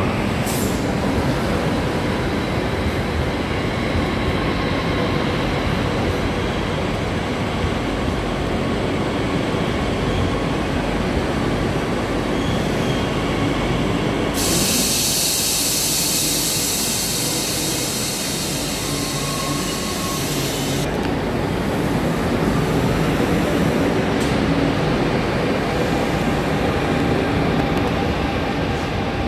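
Electric commuter trains running along a platform in an underground station: RER A trainsets (an MI09, then an MI2N double-decker) moving past with a steady rumble. In the middle, for about six seconds, a loud steady hiss rises over the rumble and stops abruptly.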